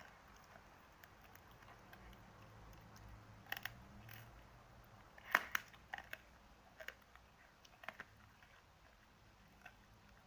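Dogs chewing, with irregular sharp crunches; the loudest cluster comes about five and a half seconds in, with smaller crunches before and after.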